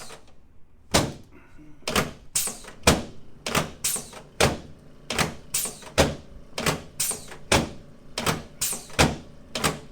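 A run of sharp knocks, about two a second and slightly uneven, starting about a second in and keeping on.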